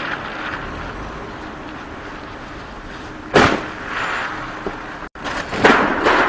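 Steady street and traffic noise, then a sharp bang a little after three seconds in and a cluster of bangs near the end: a car crashing into a road-sign post at a junction.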